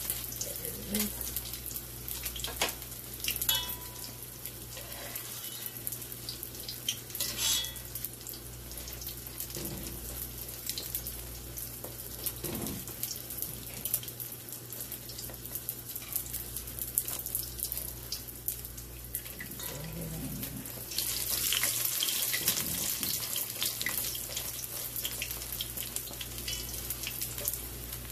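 Saltfish fritters frying in hot oil in an aluminium pot: a steady sizzle with crackling pops, which grows louder about three quarters of the way through. There are a few light clinks of a metal fork and spoon against the pot.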